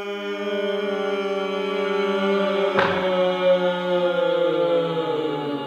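A drawn-out, held vocal cry of "Nooo" on one long steady note, with a second voice layered over it. It begins sliding down in pitch over the last second or so, and there is a short click about three seconds in.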